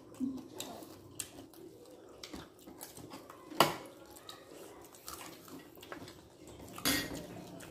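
Spoons and fingers working on ceramic plates during a meal: scattered small clicks and taps, with one sharp, louder clink about three and a half seconds in and another near the end.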